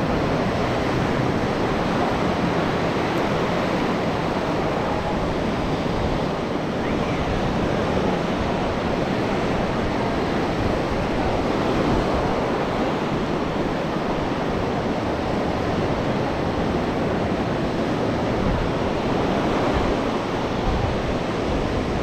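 Sea surf washing steadily onto a sandy beach, with wind noise on the microphone.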